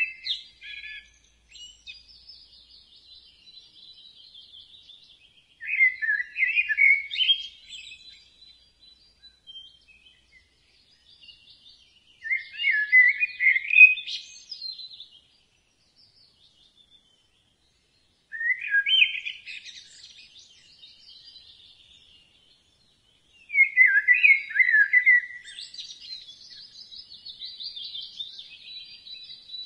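Birdsong: a bird sings short phrases of chirps about every six seconds, with fainter twittering in between.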